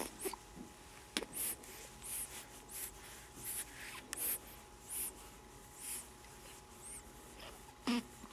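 An infant's quick, snuffly breathing close to the microphone: soft puffs of breath about once or twice a second, with a brief small baby vocal sound near the end.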